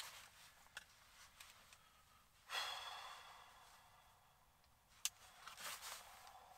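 Mostly quiet. About two and a half seconds in, a man lets out a long sigh of disappointment after a missed bite. Near the end comes a sharp click and a shorter breath.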